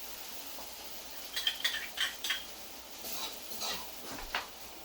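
A spoon clinking and scraping against a cooking pot in two short clusters of knocks, with one sharper knock at the end.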